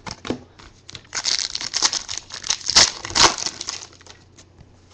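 Crinkling and rustling of a foil trading-card pack wrapper being handled, with a few sharper crackles about three seconds in.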